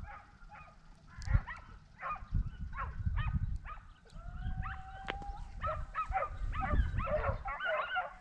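A pack of hunting dogs baying in the distance, many overlapping yelps and barks, with one longer held note near the middle; hounds giving tongue like this signal they are on a wild boar's scent. Low rumbles of wind on the microphone come and go underneath.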